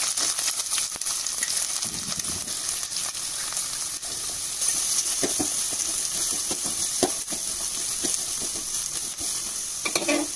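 Chopped onions and green chillies sizzling steadily in hot sesame oil in a steel pan, frying for sambar. A steel ladle stirs them, with a few short clinks against the pan around the middle.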